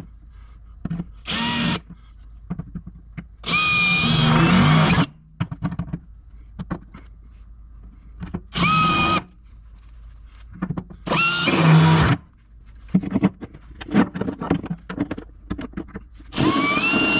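Handheld power drill boring holes through the car's sheet-steel boot floor to mount a fuel pump bracket. It runs in five bursts of about half a second to two seconds, each with a motor whine that rises as it spins up. Small clicks and knocks come between the bursts.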